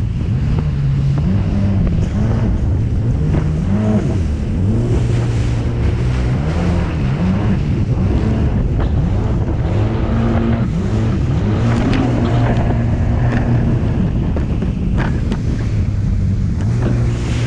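Jet ski engine running at speed, its pitch rising and falling as the throttle changes through turns, with wind buffeting the microphone and water rushing past the hull.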